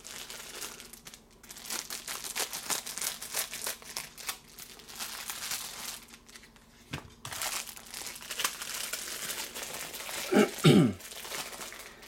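Clear plastic wrap crinkling and rustling as it is cut open and pulled off a leather lighter pouch, in irregular spells with two short pauses. A short throat-clearing comes near the end.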